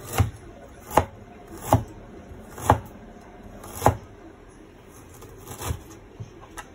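A kitchen knife striking ginger on a chopping board in slow, separate strokes, about six firm chops roughly a second apart, with a few lighter ones near the end.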